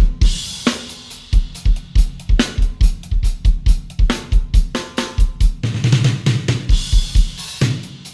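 Yamaha Stage Custom drum kit (Birch and Hip drums combined) played in a steady groove of bass drum, snare and hi-hat, opening on a cymbal crash, with a run of low tom strokes about six seconds in.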